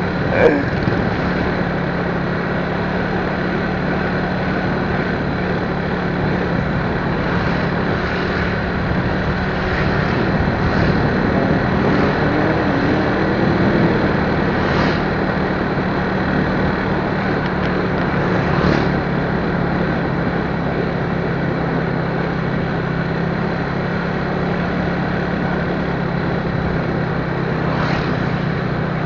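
A vehicle running steadily on the move: a constant low engine hum under an even rush of road and wind noise.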